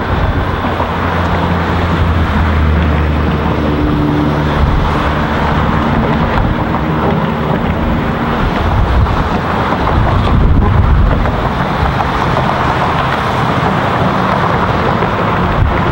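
Road traffic on the Golden Gate Bridge rushing past beside the walkway, mixed with strong wind buffeting the microphone. A heavier vehicle's low engine hum stands out through the first half.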